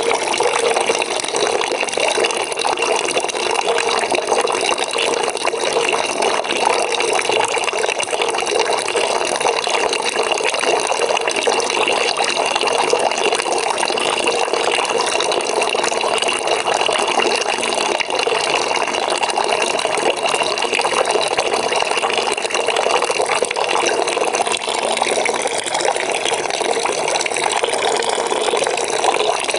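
Water from a tap pouring steadily into a bucket, a continuous even splashing and gurgling that doesn't change.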